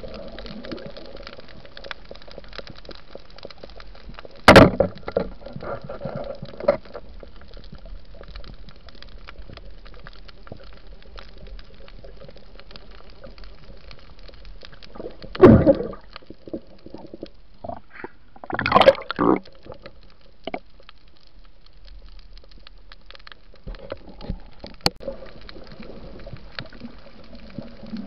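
Underwater sound: a steady faint crackle of many fine ticks, broken by a sharp knock about four seconds in and two loud rushes of water and bubbles past the microphone, one around the middle and another a few seconds later.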